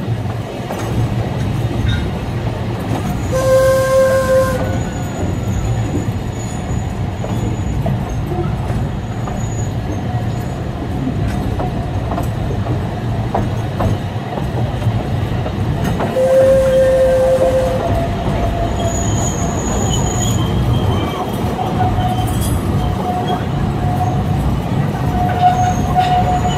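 Alishan Forest Railway narrow-gauge steam train running, heard from on board as a steady low rumble of the wheels on the track. Two short whistle blasts, about 4 and 16 seconds in, and intermittent high wheel squeal in the second half.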